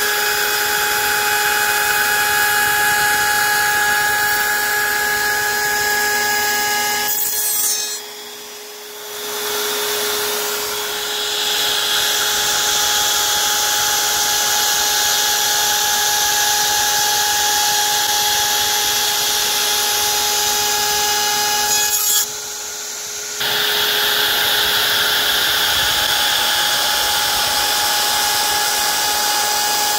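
CNC router spindle spinning a 5/8-inch two-flute carbide bit at around 21,000 RPM, flattening a maple tree cookie: a steady high whine over the noise of the cut. The sound drops away briefly twice, about eight seconds in and again about twenty-two seconds in.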